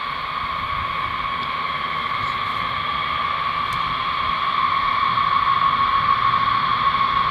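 Eight Pratt & Whitney TF33 turbofans of a B-52H Stratofortress running as it taxis: a steady high whine over a hiss, growing a little louder about two-thirds of the way through.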